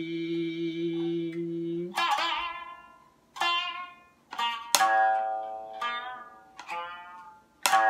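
A man's chanted note is held to about two seconds in, then a biwa is struck with its large wooden plectrum (bachi): about seven separate strokes on the strings, each sharp at the attack and ringing out before dying away.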